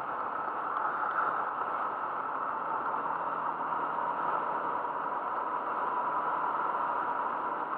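KYMCO MXU 300R quad's single-cylinder engine running steadily while riding along a dirt track, mixed with wind and tyre noise into a dull, even drone. A faint steady whine comes in about halfway through.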